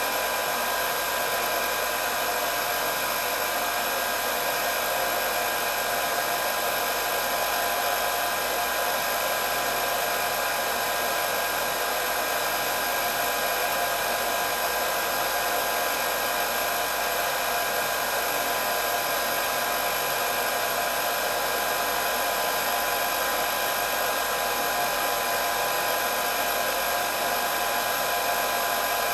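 Electric hair dryer running steadily on a constant setting, its fan motor whirring under a rush of blown air, with a high whine of several steady tones and no change in speed.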